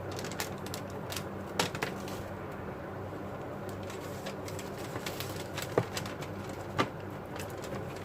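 Scattered snips and small clicks of excess paper pieces being cut away, with a few sharper ones, over a low steady hum.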